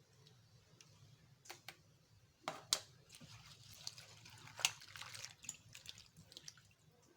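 Gongura (sorrel) leaves being washed by hand in a bowl of water: water splashing and dripping, with a few sharp knocks against the vessel, the loudest about two and a half seconds in.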